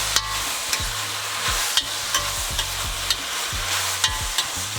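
Geoduck clam pieces sizzling in hot oil while being stir-fried, with a steady hiss and the utensil clicking against the pot about twice a second as it is mixed.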